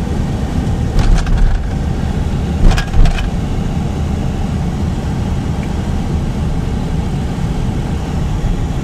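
Car running, a steady engine and road rumble, with a few brief knocks about a second in and again near three seconds.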